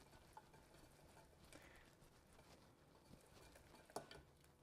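Faint soft tapping and scraping of a silicone-coated whisk stirring a thick butter-and-flour roux in a stainless steel pot, with one sharper tap near the end.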